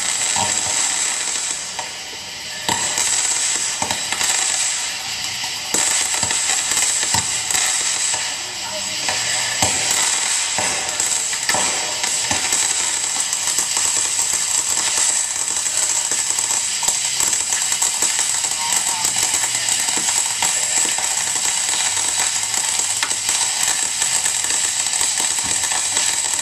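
Fireworks crackling: a dense, unbroken run of sharp snaps and pops over a hiss, with no big booms standing out.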